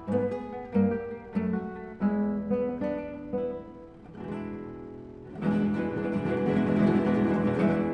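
Two nylon-string classical guitars playing a blues duet: separate plucked chords and bass notes, then a loud strummed passage from about five and a half seconds in.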